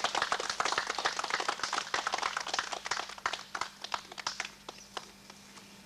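A small group clapping, the claps thinning out and stopping about five seconds in.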